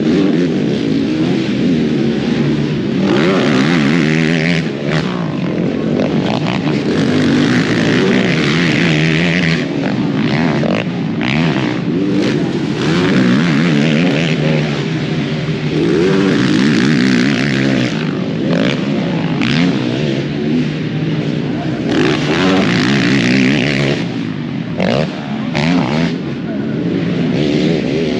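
Racing quad (ATV) engines running hard on a motocross track, revving up and easing off again and again every few seconds.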